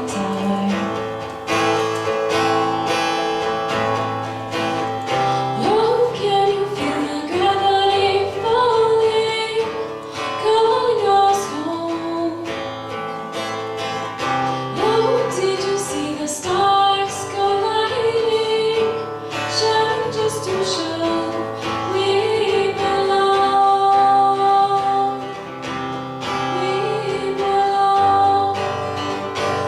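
A woman singing a song, accompanied by a strummed acoustic guitar.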